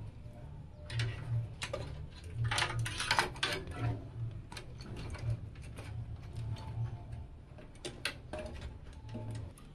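Irregular plastic clicks and rattles of cables and cooler tubing being handled and routed inside a PC case, heaviest in a cluster about three seconds in and again near the end, over a low pulsing hum that stops shortly before the end.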